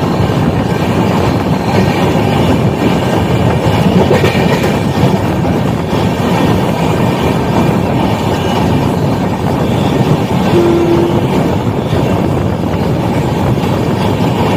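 Passenger train running at speed, with a steady loud noise of wheels on the rails heard at the coach doorway. A short steady tone sounds briefly a little after ten seconds in.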